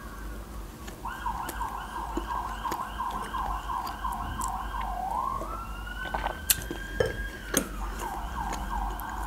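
Emergency vehicle siren switching between its modes: a slow wail falling at the start, then a fast yelp of about four sweeps a second. The wail then rises and holds for about two seconds before falling, and the yelp comes back near the end.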